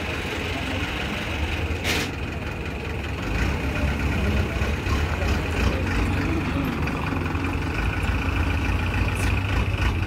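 Engine of the recovery vehicle running steadily, growing louder about three seconds in, with a steady high whine over it and a single sharp click about two seconds in.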